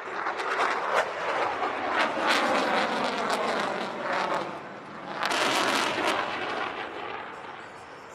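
Military jet aircraft passing, its engine roar surging and fading with a sweeping, phasing whoosh; loudest a little past halfway, then dying down near the end.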